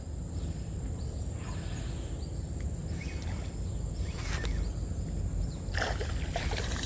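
Faint water sloshing and splashing with a few scattered clicks over a steady low rumble, as a hooked fish is played in at the water's edge.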